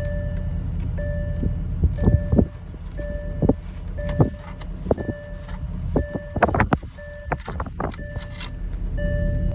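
A car's warning chime dings steadily about once every 0.75 s over a low steady hum. In the middle, a T10 screwdriver working a screw out of the steering wheel makes several sharp clicks and scrapes.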